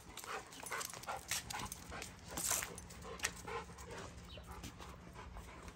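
A Rottweiler making short, faint whines among scattered footsteps and rustling.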